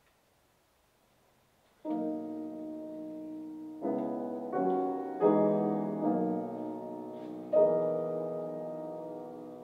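Grand piano, near silence and then the opening chords of an art song, beginning about two seconds in. Six or so chords are struck one after another, each left to ring and fade.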